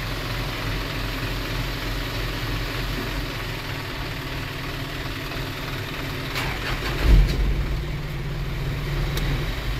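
Isuzu NPR truck's diesel engine, low and steady at first, with a few clicks and a sudden loud surge about seven seconds in as it fires, then running at a steady idle. The truck is hard to start at times, which the owner blames on a leaking battery.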